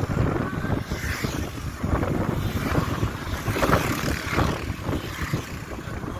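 Wind buffeting the phone's microphone over the rush of a moving vehicle on the road, rising and falling in gusts.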